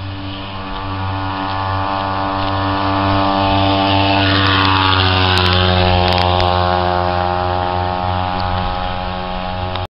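Small gas engine of a motorized bicycle running steadily as it rides past: it grows louder as it approaches, drops in pitch as it passes about four seconds in, then carries on as it moves away. The sound cuts off suddenly near the end.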